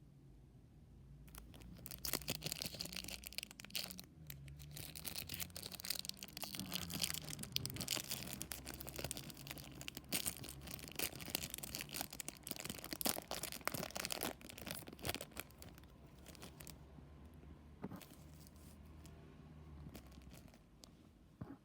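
A trading card pack's wrapper being torn open and crinkled, a dense run of crackling and tearing. After about 15 seconds it gives way to quieter, sparser rustles and clicks as the cards are handled.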